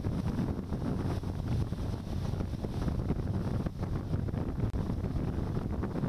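Wind buffeting the microphone over the low rumble and water noise of a boat under way at sea.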